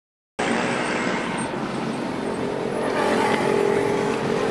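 Golden Dragon XML6103 coach bus's diesel engine running close by amid road traffic, a steady noise, with a steady hum joining about three seconds in as the bus is boarded.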